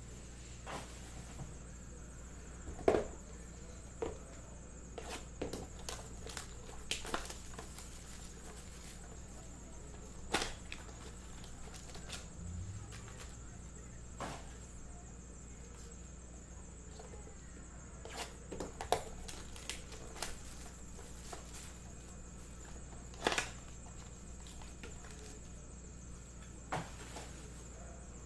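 Trading-card packs and cards being handled on a table: about a dozen scattered soft taps and clicks, the sharpest about three seconds in and again near the end, over a steady low electrical hum.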